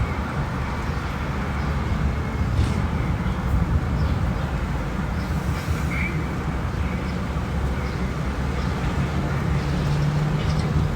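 Steady low rumble of a running vehicle, even and unbroken, with no clear knocks or changes.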